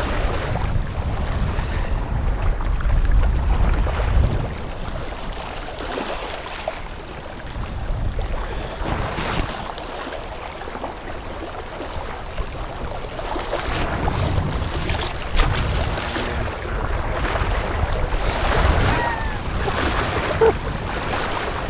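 Wind buffeting the microphone in uneven gusts, a low rumble that swells and fades.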